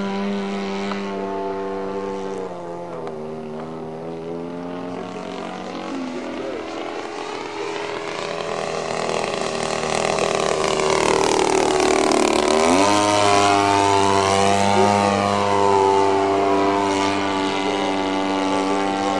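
XYZ 50cc two-stroke gasoline engine of a 27% CAP 232 radio-controlled plane, turning a Xoar 20x8 propeller in flight. The note drops slightly after about two seconds, then swells as the plane passes close. The pitch falls sharply as it goes by about thirteen seconds in, and the engine runs steadily after that.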